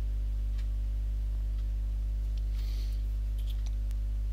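Steady low electrical hum with a ladder of overtones on the recording, and a few faint clicks over it, among them mouse clicks on a web page.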